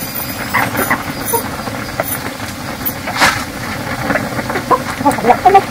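Steady hiss of food cooking over a wood fire, with scattered crackles and clicks and one louder crackle about three seconds in.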